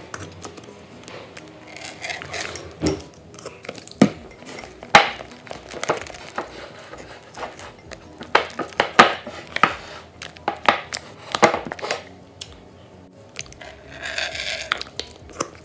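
Silicone spatula stirring thick glue slime in a glass bowl as activator is worked in, with irregular sharp clicks and knocks of the spatula against the glass.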